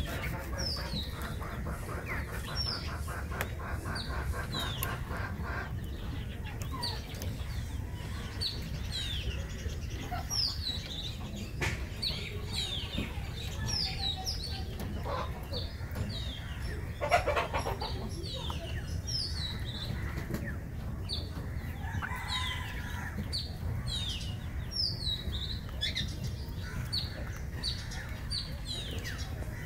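Birds chirping in a steady run of short, high, falling chirps, about two a second, with a chicken clucking now and then. One sharp knock about 17 seconds in is the loudest moment.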